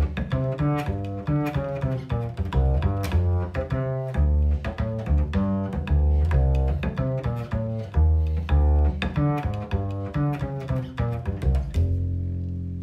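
Double bass played pizzicato: a samba bass line of quick finger-plucked notes. Near the end a last low note rings on and fades.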